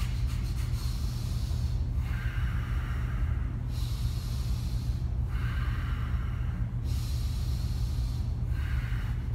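A man taking slow, deep breaths in and out through the nose, about three full breaths with each half lasting about a second and a half: recovery breathing after running short of air in Kapalbhati breathing. A steady low air-conditioner hum runs underneath.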